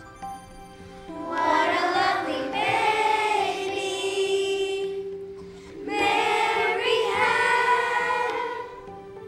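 Children's choir singing with instrumental accompaniment. There are two sung phrases of held notes; the first comes in about a second in and the second starts after a brief dip a little past the middle.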